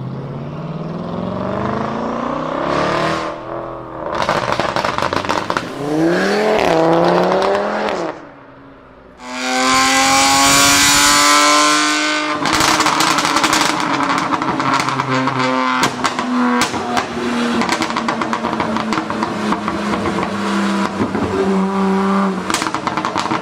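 Performance car engines revving hard and accelerating in several short, separate bursts, the pitch climbing and dropping with each rev. Rapid exhaust pops and crackles run through the second half.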